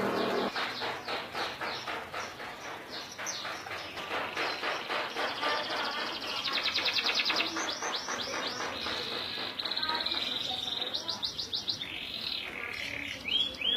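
Domestic canary of the Indonesian local breed (kenari lokal) in full, continuous song. It delivers fast trills of rapidly repeated high notes, runs of chirps and a few upward-sweeping whistles near the end.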